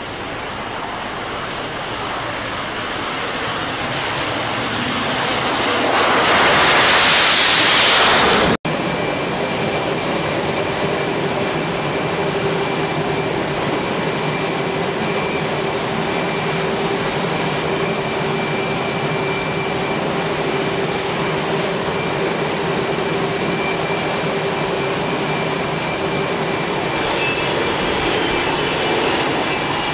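Jet aircraft noise building over several seconds to a loud rush and then cut off abruptly. After the cut comes the steady rush and whine of F/A-18 jet engines running on deck, with a constant high whistle.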